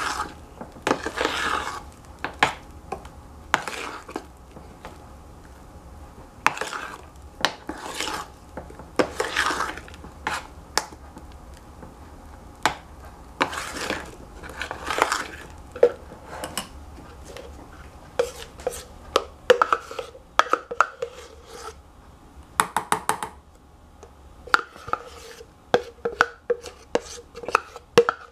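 Metal spoon scraping against a stainless steel saucepan, stirring thick melted chocolate in irregular strokes. In the second half the strokes become quicker, lighter clinks with a faint metallic ring.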